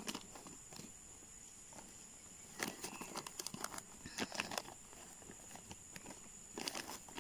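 Soft crinkling of black plastic nursery bags and scraping of soil as a hand pushes seeds into the potting mix. The sound comes in short clusters of crackles, about two and a half, four and six and a half seconds in.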